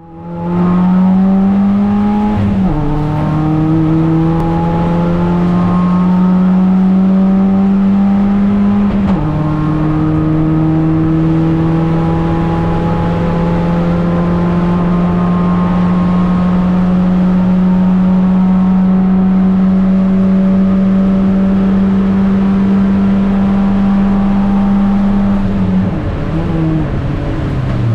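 First-generation Dacia Logan Cup race car's four-cylinder engine heard from inside the cabin under hard acceleration. The revs climb, drop at upshifts about two and a half seconds in and again around nine seconds in, then hold high and rise slowly on the straight. Near the end they fall in steps as the car brakes and shifts down.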